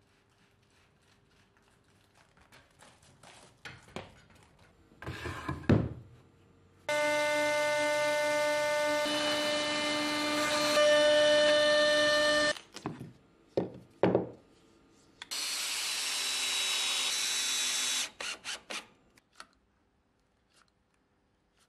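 Knocks and clatter, then a CNC router spindle runs with a steady high whine as it cuts into a wooden board for about five seconds before stopping abruptly. After a few more knocks, a hot-air gun blows with a steady hiss for about three seconds.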